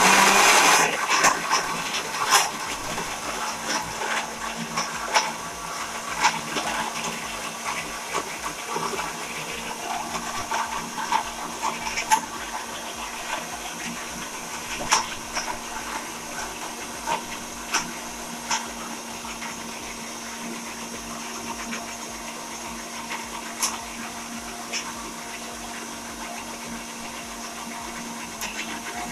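Countertop electric blender running steadily, crushing ice into a frozen slush: a loud clatter of ice against the jar at the start thins to scattered clicks as the mixture turns smooth, over a steady motor hum.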